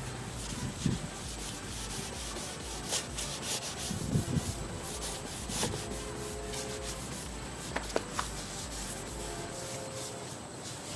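A cloth rubbing over a car body panel in many quick wiping strokes, with a few light knocks: the solvent wipe-down that clears residue from the panel before the base coat.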